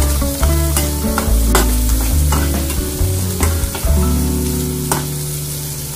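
Mixed vegetables sizzling as they fry in a little oil, stirred and turned with a steel spatula that scrapes and taps against the pan. Background music with a deep bass line plays over it.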